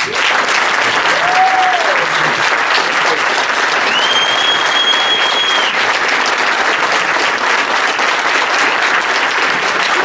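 Audience applauding steadily, with a short whoop about a second in and a long, high whistle from about four seconds in.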